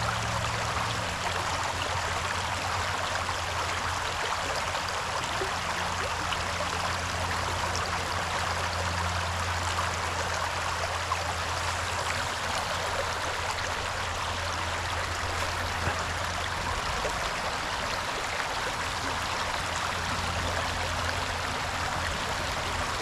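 River water rushing, a steady even wash with no breaks.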